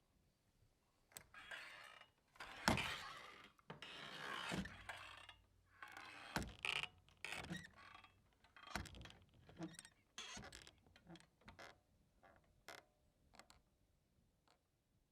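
Swinging saloon doors creaking on their hinges and knocking as they swing, in irregular bouts. The loudest knock comes a little under three seconds in, and the swinging dies away toward the end.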